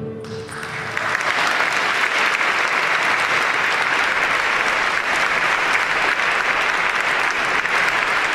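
The last note of an acoustic guitar dies away, and about half a second in a concert audience breaks into applause that holds steady.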